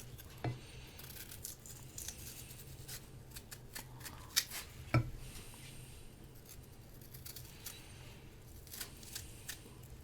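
A knife cutting a crisp Korean pear: faint crisp cuts and scrapes, with a few sharper taps about half a second in and again around four and five seconds in.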